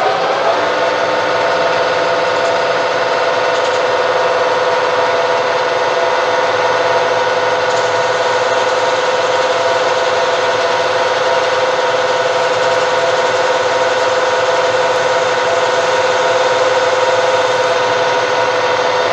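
Lathe running at steady speed with a steady whine while turning down a plastic bar to spark-plug thread diameter.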